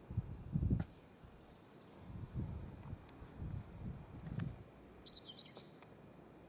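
Insects chirring outdoors in one steady high-pitched tone, with low gusts of wind on the microphone now and then.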